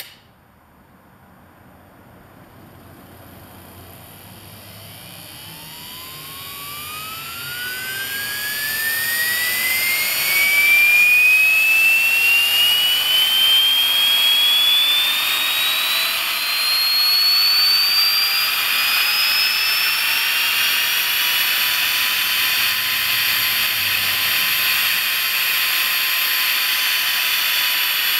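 A 48 V DC universal motor spinning up as a variac slowly raises its voltage. Its whine climbs steadily in pitch and grows louder for about ten seconds, then levels off into a loud, steady high whine over a rushing hiss as it reaches full speed.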